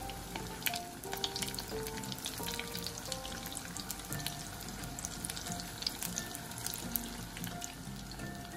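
Spring rolls deep-frying in hot oil: a dense crackle and sizzle of many sharp pops. Background music plays under it.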